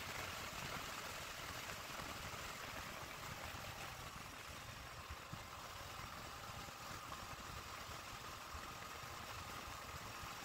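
Triumph Tracer 900 GT motorcycle riding at highway speed: a steady rush of wind and road noise with the engine running underneath.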